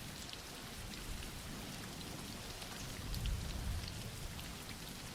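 Soft, steady rain, with single drops ticking here and there and a slight low swell about three seconds in.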